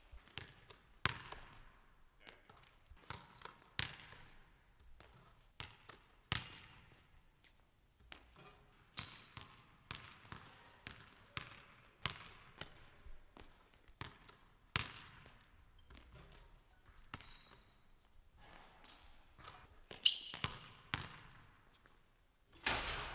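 A basketball dribbled on a hardwood gym floor, giving irregular sharp bounces one to three a second, with short high sneaker squeaks between them.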